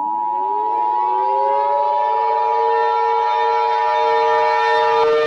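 Emergency Alert System attention signal, two steady tones sounding together, over a civil defense siren that winds up, rising in pitch for about two seconds and then holding a steady wail. The two-tone signal cuts off near the end while the siren keeps sounding.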